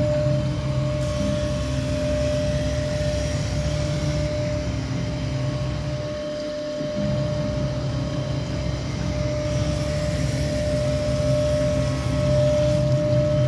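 Knife grinding machine sharpening a guillotine knife: a steady low motor hum with a constant whine and hiss as the grinding head travels along the clamped blade. The sound dips briefly about six seconds in, then carries on as before.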